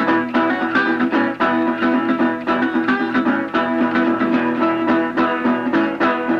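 Background music led by quickly picked plucked string instruments, with many fast notes over sustained tones.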